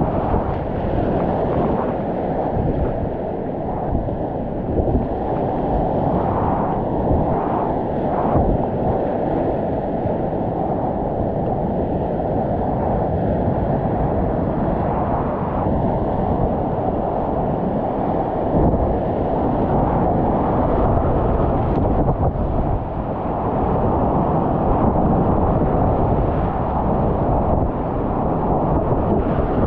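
Whitewater rapids rushing in a steady, loud, muffled roar of churning water, heard from a kayak running through them.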